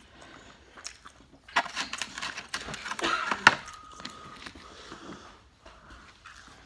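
Chewing and handling of chicken tenders and fries in a foam takeout box, with a dense stretch of crackling and clicking from about a second and a half in that ends in a sharp click.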